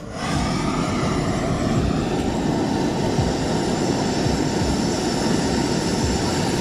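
Propane hand torch burning with a steady hiss, its flame held on spark plug tips. The flame comes on right at the start.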